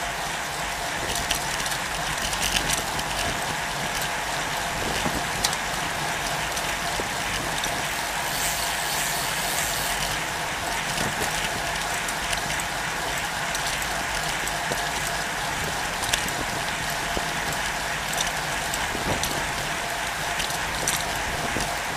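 Steady rushing road and wind noise of a road bicycle rolling at speed in a group ride, heard from a camera mounted low on the bike, with scattered clicks and rattles.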